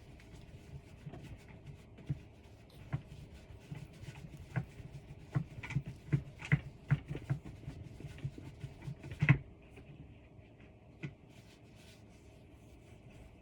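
Handling noise from cat tree parts being worked on during assembly: scattered clicks and light knocks, a quick run of taps partway through, and one louder knock near the end.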